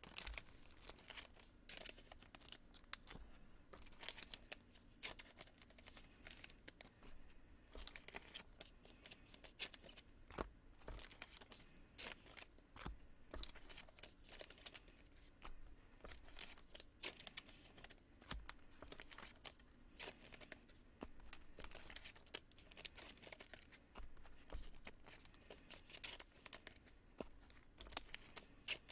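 Faint, irregular rustling, crinkling and clicking of Topps Chrome baseball cards and foil pack wrappers being opened, handled and sorted.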